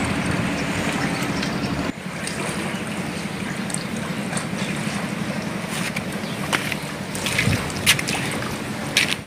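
Floodwater of the swollen Godavari river rushing and sloshing, with wind noise on the microphone. A steady noisy wash, slightly quieter after a cut about two seconds in, with a few short sharp splashes or knocks near the end.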